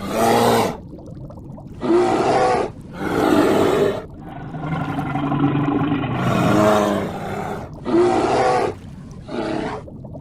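An animal calling repeatedly: about six loud calls with a clear pitch, each lasting from half a second to a few seconds, with short pauses between them.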